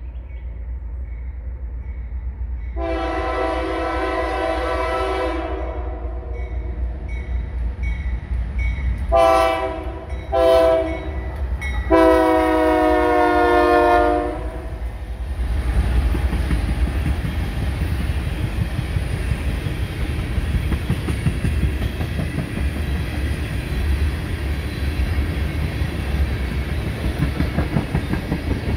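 A freight locomotive's air horn sounds for a grade crossing: a long blast, two short blasts, then another long blast. Under it and after it, a string of empty ethanol tank cars rumbles past, their wheels clacking steadily over the rail joints.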